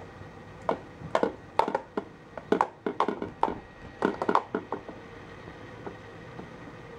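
Ball-track cat toy being batted: a rapid run of hard plastic clicks and clatters as the ball knocks around inside the plastic track, starting under a second in and stopping about five seconds in.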